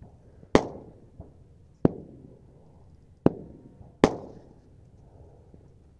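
Distant gunshots from other shooters: four separate sharp cracks a second or so apart, each trailing off in a short echo.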